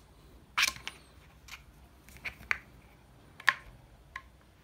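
Sharp clicks and knocks, about seven in a few seconds, the loudest a little over half a second in and about three and a half seconds in, as glass marbles and the plastic and wooden track are handled.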